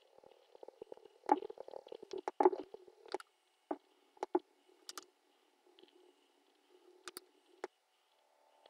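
Fire crackling: irregular sharp pops and cracks, a few of them loud, over a faint low hum and a faint high steady buzz.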